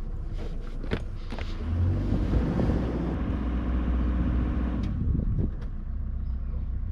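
Boat engine running with a steady low hum, louder for a few seconds in the middle, with a few short knocks.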